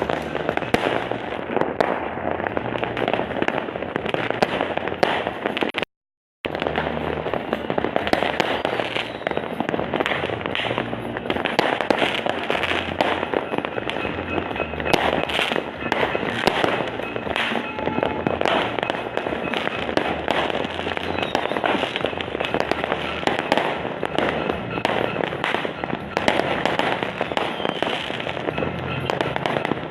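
Many fireworks and firecrackers going off at once in a dense, continuous barrage of cracks and bangs, New Year's Eve style. The sound cuts out for about half a second around six seconds in.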